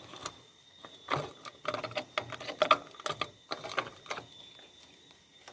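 Irregular light clicks and knocks of metal parts or tools being handled, with a faint steady high whine.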